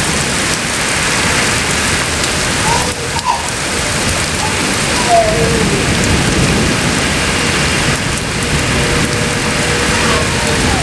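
Rain pouring down steadily in an even, dense hiss.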